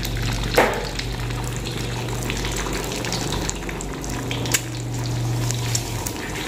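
Eggs frying in hot oil in a steel wok, sizzling with scattered crackles and one loud pop about half a second in, over a steady low hum.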